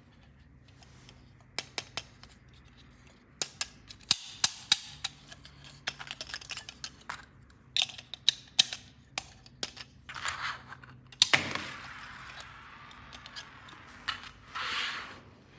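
Hands handling plastic toy pieces and packaging: an irregular run of sharp clicks and taps, with a few brief rustles near the end.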